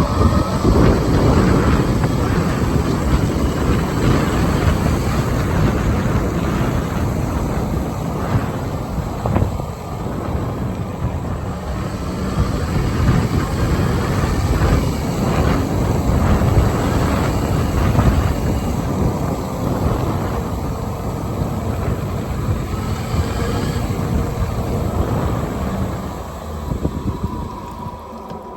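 Wind buffeting the microphone of a moving open electric golf cart: a loud, uneven rumble with road noise under it, easing off somewhat near the end.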